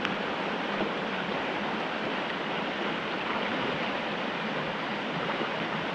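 A creek running high and fast, its current rushing steadily.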